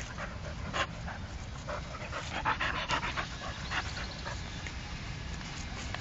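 Dogs panting during a dog fight, with irregular short knocks and scuffling noises.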